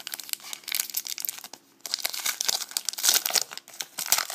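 Trading-card pack wrapper being torn open and crinkled by hand, a dense crackling with a short pause partway through.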